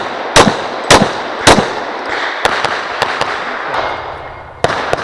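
Glock 35 pistol in .40 firing a weak-hand-only string: four loud shots about half a second apart in the first second and a half, then several fainter cracks with echo.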